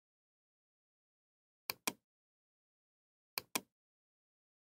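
Computer mouse button clicked twice in two quick pairs, each a press and release about a fifth of a second apart, as brush strokes are drawn.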